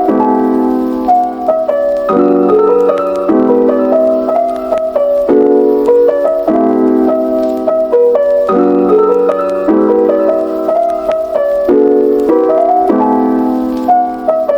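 Background music: a gentle piano tune of repeating chords and melody phrases.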